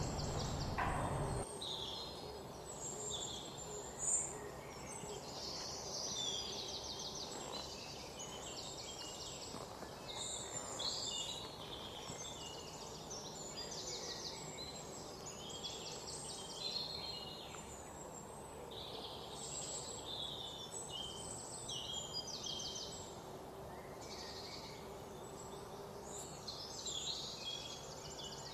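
Background birdsong: many small birds chirping and trilling over a steady hiss, with a single click about four seconds in.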